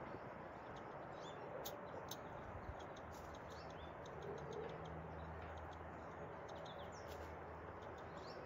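Faint short bird chirps and clicks, scattered irregularly over a steady outdoor background hiss, with a low hum coming in about a third of the way through.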